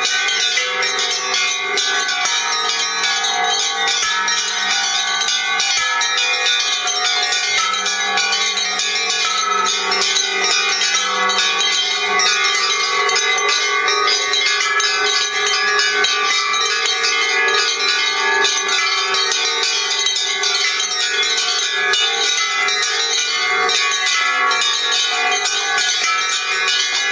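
Many bells of different pitches, handbells and rack-hung bells, rung together without pause. Their strokes overlap into a dense, steady clangor of ringing tones.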